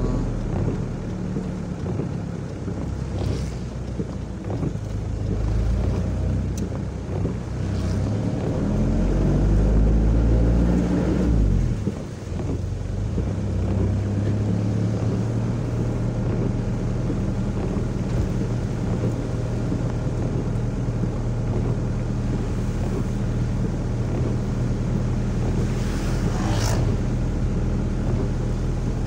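Motorcycle engine running steadily while riding, with wind buffeting the microphone. The engine picks up speed about eight seconds in and drops back suddenly about twelve seconds in.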